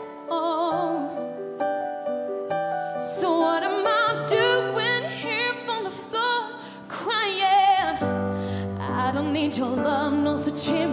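Pop ballad: a woman singing with vibrato over piano and backing music, with a deep bass coming in about eight seconds in.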